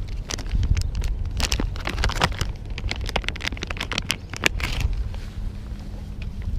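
Plastic Berkley Gulp! soft-bait pouch crinkling and crackling as it is handled, dying down about five seconds in.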